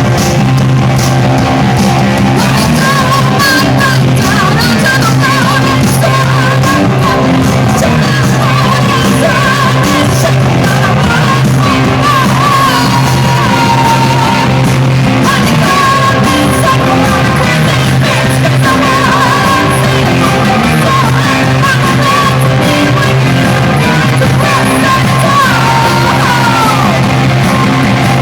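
A rock band playing loud, with a singer yelling and singing over guitar, bass and drums.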